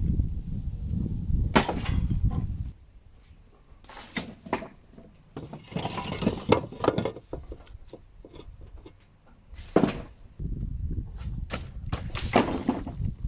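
A series of separate knocks and clattering impacts, about five spread through the stretch, over a low rumble that stops after a couple of seconds and returns near the end.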